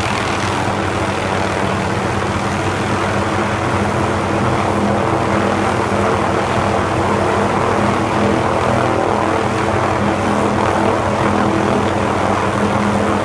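Small utility helicopter hovering low overhead, its rotors and engine running in a loud, steady drone with an even hum of tones underneath.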